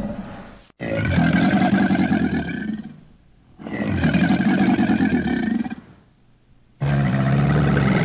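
Crocodile bellowing: three long, deep calls of about two seconds each, with short pauses between them.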